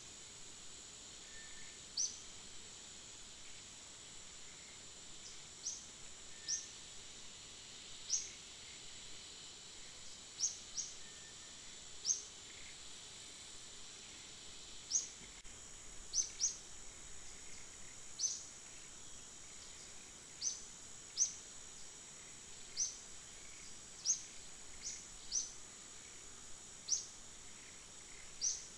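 Tropical forest ambience: a steady high insect drone, with short sharp high chirps every second or two, some in quick pairs.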